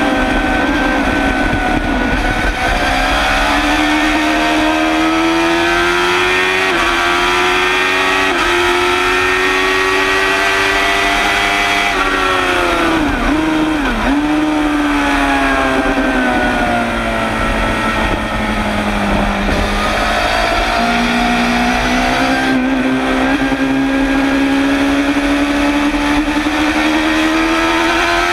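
Suzuki GSX-R750 SRAD's inline-four engine at race pace, heard close to its exhaust silencer. It revs up through several gears, the pitch dropping sharply at each upshift. About halfway it falls away with quick blips on the downshifts, then pulls through the gears again near the end.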